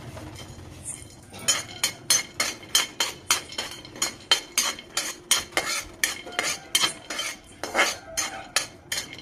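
A metal ladle scraping and clinking against an aluminium kadhai, about three strokes a second, stirring cashews and other dry fruits being roasted in a little ghee. The stirring starts about a second and a half in.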